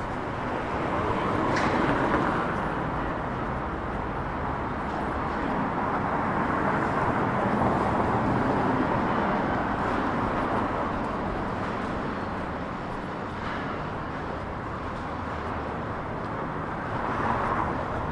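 City street ambience: traffic noise rising and falling as vehicles pass, with a few faint clicks.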